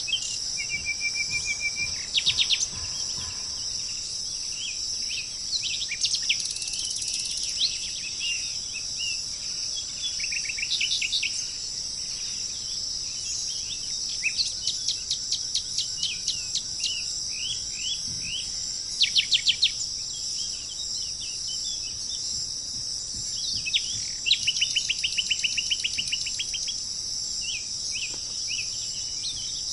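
Songbirds calling and singing: short chirps, rattling trills and quick series of repeated notes. They come over a steady, high-pitched drone of insects.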